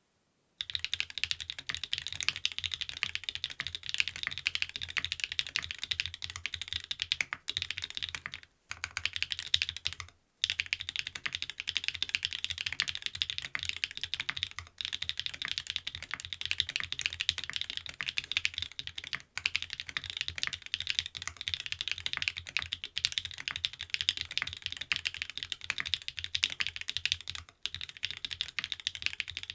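Fast, continuous typing on a TKD Cycle 7 mechanical keyboard with stock-lubed SW x Gateron Deepping switches, an aluminium plate, bean gasket mount and PBT keycaps. It makes a dense stream of key clacks that starts just after the beginning and breaks off briefly twice about a third of the way through.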